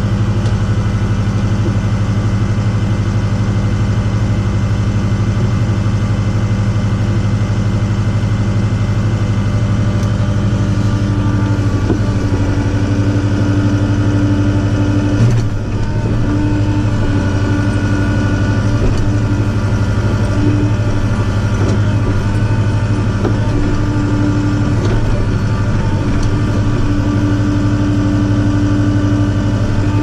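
Compact tractor's diesel engine running steadily, with a higher hum that comes and goes as the front loader's hydraulics and quick coupler are worked. A single clunk about halfway through.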